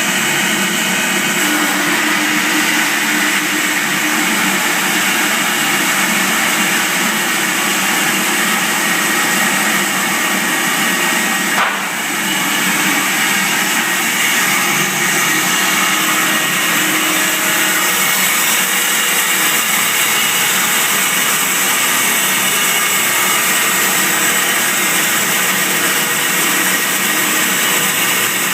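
Baker band sawmill running steadily as it saws hand-hewn white oak timber into slabs, with a short knock about twelve seconds in.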